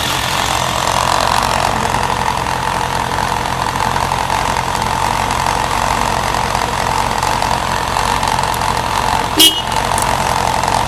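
Suzuki GSF1200's oil-cooled inline-four engine idling steadily, running smoothly with no abnormal noises. About nine seconds in there is a short, loud, sharp sound.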